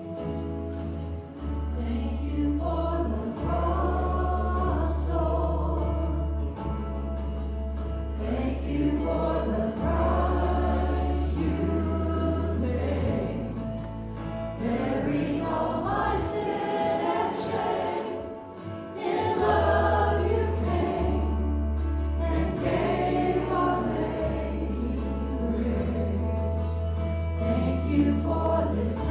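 Worship song sung by a few lead voices with the congregation, over band backing with deep bass notes that change every second or two.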